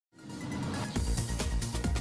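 Electronic intro music fading in, with a fast, steady beat coming in about a second in.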